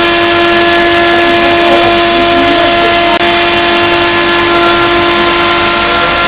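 Milling machine's spindle and cutter running steadily while routing an MDF panel: a constant high whine over dense cutting noise, with a brief dip about three seconds in.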